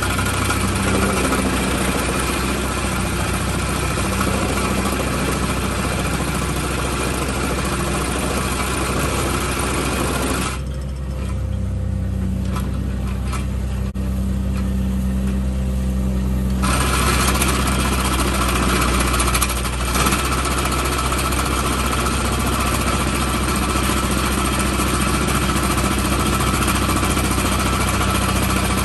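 Hydraulic vibratory compaction bucket on an excavator, vibrating hard against fill with a dense rattling hammer, over the steady hum of the excavator's engine. About ten seconds in the vibration stops for about six seconds, leaving only the engine running, then starts again.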